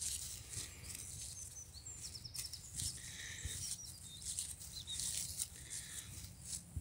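Intermittent rustling and crackling, with a few faint high bird chirps about a second in and again near the middle.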